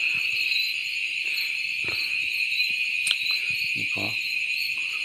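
Steady, high-pitched chorus of insects chirring without a break, with a single sharp click about three seconds in.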